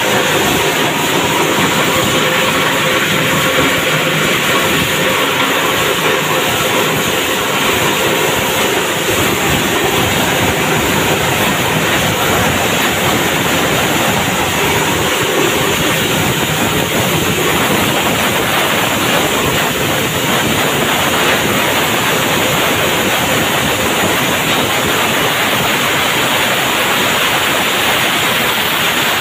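Online dust separator running in an inline process: a loud, steady, even noise of moving air and material with no pauses.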